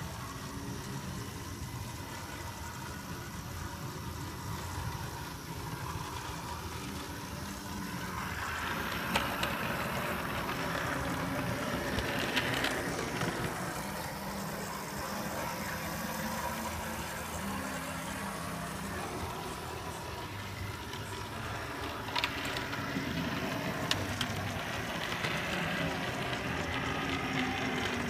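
Model camel-class steam locomotive and tender running on layout track: a steady whir of motor and wheels on the rails that grows louder as the train passes close, with a few sharp clicks.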